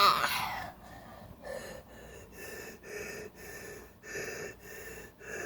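A rhythmic pulsing noise, about two pulses a second, each pulse a steady mix of a low and a higher tone, after a shouted voice trails off at the start.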